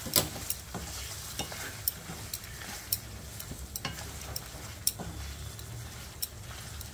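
Wooden spatula stirring whole green chillies through hot oil and spice paste in a metal kadai. A steady sizzle runs under irregular scrapes and taps of the spatula against the pan.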